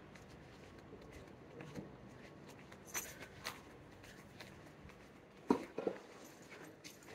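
Quiet city street ambience with a few scattered short knocks and clicks; the loudest is a close pair about five and a half seconds in.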